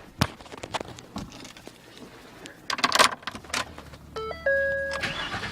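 A few scattered clicks and rattles inside the Ford F-150's cab, then about four seconds in the truck's electronic startup chime: a quick run of stepped tones settling into a held tone.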